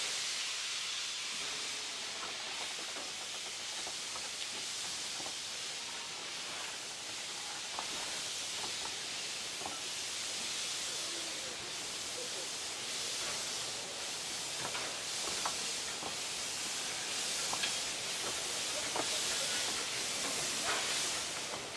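Steady hiss of steam from narrow-gauge 2-6-2T steam locomotives standing with the train, with a few faint clicks.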